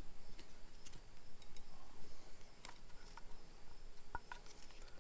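Faint, scattered small clicks and rubbing as new spark plug wire boots are handled and pushed onto the spark plugs.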